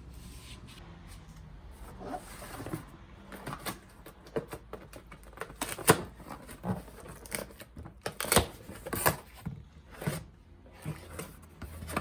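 Irregular clicks, knocks and light clunks, as of hand tools and parts being handled. The sharpest knocks come in the second half.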